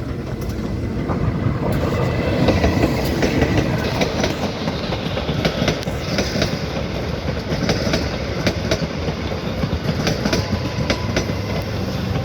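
A train passing close by at a level crossing: a steady rumble that builds over the first couple of seconds and then holds, with the wheels clacking repeatedly over the rail joints.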